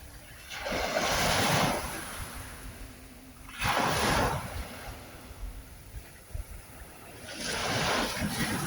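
Ocean waves breaking on a shore: three rushing surges of surf, about one every three to four seconds, each rising and then washing away.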